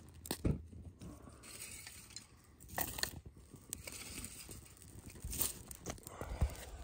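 Thin dry twigs rustling, crunching and snapping as they are piled by hand onto a small campfire, with several sharp snaps among the rustling.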